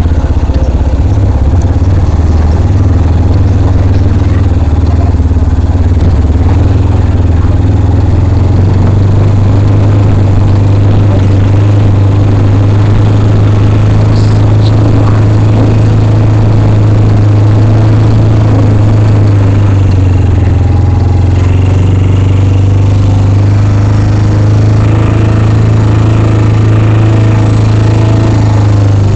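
Motorcycle engine running at a steady, nearly constant speed while riding, loud and close.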